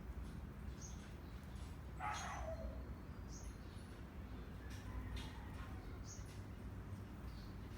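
Small birds chirping, with short high calls every couple of seconds. About two seconds in there is one louder call that glides downward in pitch.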